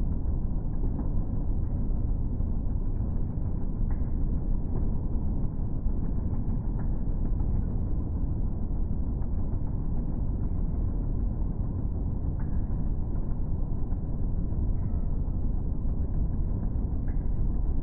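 Skating treadmill running with a steady low rumble from its moving belt and motor, with a few faint clicks of skate blades on the belt.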